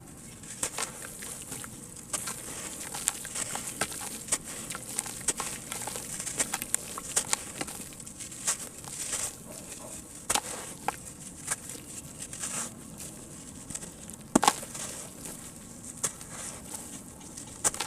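Lumps of sand cement crumbling and dissolving in water, giving irregular crackles and small sharp clicks over a faint fizzing hiss, with one louder snap about three-quarters of the way through.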